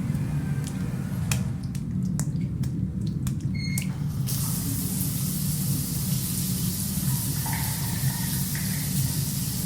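A few clicks and knocks, then a shower comes on about four seconds in and runs steadily with an even spray hiss, over a low steady room hum.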